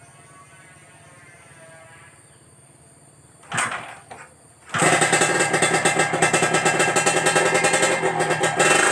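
Kawasaki Ninja R 150 single-cylinder two-stroke engine starting about halfway through. A short burst dies away, then the engine catches about a second later and runs loudly with a rapid, crisp, ringing two-stroke firing note.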